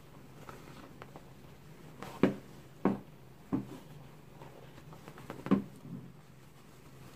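Handling noise as a canvas-and-leather handbag is drawn out of its cotton dust bag: fabric rustling with four sharp knocks between about two and six seconds in, over a faint steady hum.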